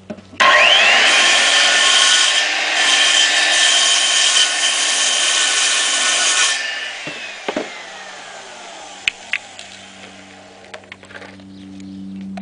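Handheld circular saw starting up with a rising whine and cutting into a wooden slat for about six seconds, then the motor winding down with a long falling whine. A few sharp knocks follow near the end.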